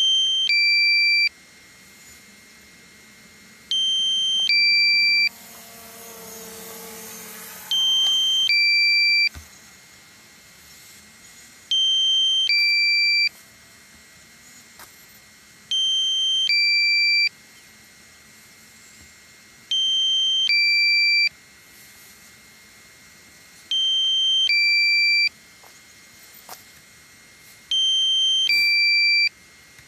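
Electronic two-tone alarm: a higher beep followed by a lower beep, about a second and a half together, repeating every four seconds. A brief rush of noise comes up midway between two of the beeps.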